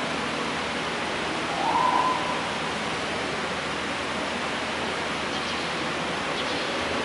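Steady background hiss with a single short hoot-like tone about two seconds in.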